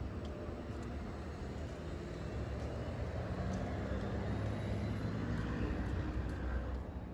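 Steady low rumble of a large road vehicle running, with a faint rising whine, growing a little louder after the middle and dropping off abruptly at the end.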